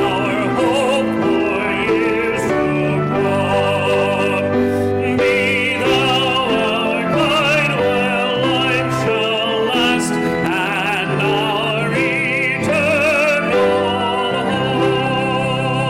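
Hymn singing with accompaniment: long held notes moving in slow chord steps, with a voice singing in strong vibrato above.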